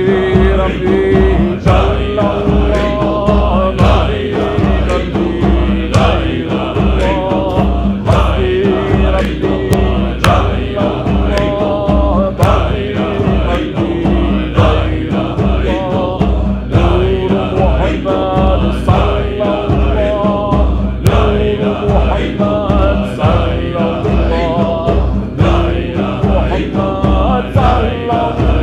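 Naqshbandi Sufi zikr: a group of men chanting in a steady, pulsing rhythm, with a solo voice singing a melody over the chant.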